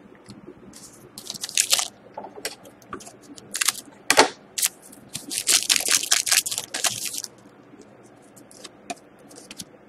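Foil wrapper of a Panini Titanium hockey card pack crinkling in sharp bursts as it is torn open and the cards are pulled out. Fainter rustles and ticks of the cards being handled follow near the end.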